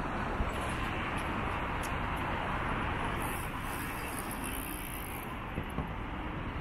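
Steady background noise of city road traffic, with a few faint clicks now and then.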